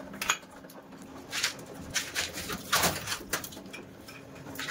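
Scattered clicks, knocks and scrapes, about six in all, from parts and tools being handled on an electric water heater opened up for cleaning, over a faint steady hum.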